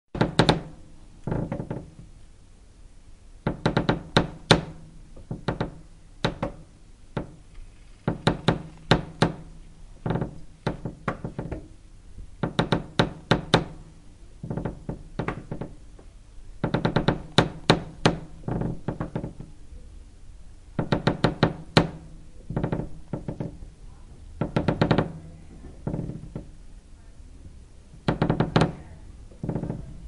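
Wood creaking under strain. The creaks come in irregular bursts about every one to two seconds, each a rapid run of clicks with a low, hollow body, separated by short pauses.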